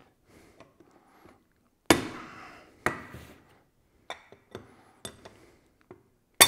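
Hammer tapping a steel drift punch against the end of a rocker shaft to drive it out of an aluminium Sportster rocker box. About seven sharp metallic taps come at irregular intervals, each ringing briefly, with the last and loudest near the end.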